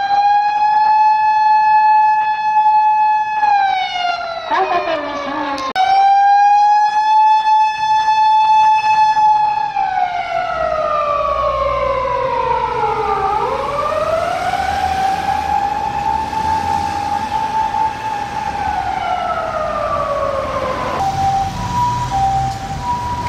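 Japanese emergency-vehicle wail siren, rising to a held high note, then falling slowly and rising again in long cycles, with a second, shorter falling siren tone briefly overlapping about five seconds in. Near the end, a two-tone hi-lo siren of the kind Japanese ambulances use takes over, over a low engine rumble.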